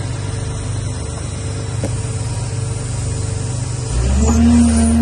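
Caterpillar 320C excavator's diesel engine running steadily; about four seconds in it gets louder under load and a steady hum joins in.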